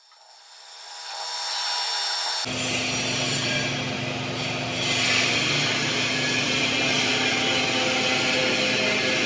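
Lathe running while a cutting tool machines the part: a hiss builds over the first two seconds, a steady low machine hum comes in suddenly about two and a half seconds in, and a continuous hissing scrape of cutting runs over it.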